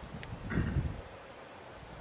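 Wind buffeting the microphone outdoors, rising in a gust about half a second in and easing after a second, with a single faint click near the start.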